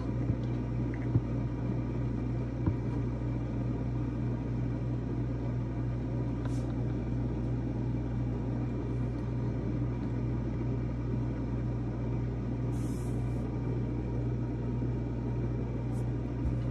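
Steady low machine hum and rumble with a few light clicks near the start and a brief hiss about thirteen seconds in.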